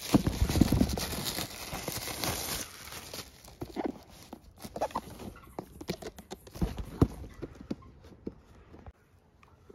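Clear plastic shrink wrap being pulled off a cardboard box and crumpled: dense crinkling and crackling for the first few seconds, then scattered crackles and light taps as the box is handled, dying away near the end.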